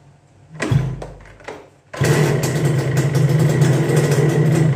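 Suzuki Satria single-cylinder two-stroke motorcycle engine being started: two short bursts as it is turned over, then it catches about two seconds in and runs steadily. The engine has just been rebuilt to cure a noisy-running complaint.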